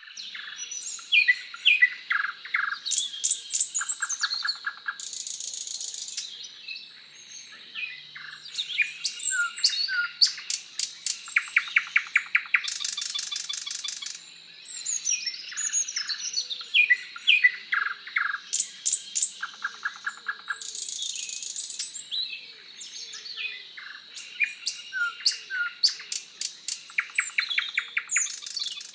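Several songbirds singing together: overlapping chirps, whistled notes and fast rattling trills, with a faint steady high-pitched tone underneath.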